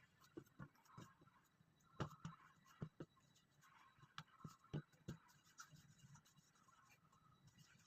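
Faint, irregular light taps and soft scratching from hands at work with food and utensils, several small clicks a second with brief pauses.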